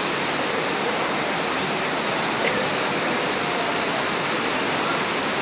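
Heavy monsoon rain pouring down and running off the station roof edges, a dense, even hiss that holds steady throughout.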